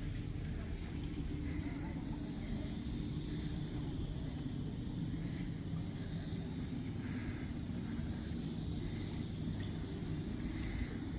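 Steady outdoor noise: a continuous low rumble with a high hiss over it.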